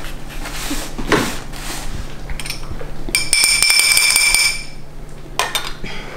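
Clinking and scraping on a metal feeding bowl with a spoon; about halfway through the bowl rings out with a high, steady tone for over a second amid rapid clinks, and a sharp knock follows.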